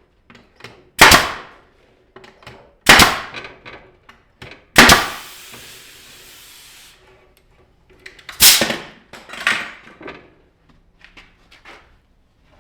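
A series of loud, sharp knocks: five strong ones a couple of seconds apart, with fainter clicks and taps between them. A hiss lasts about two seconds after the third knock.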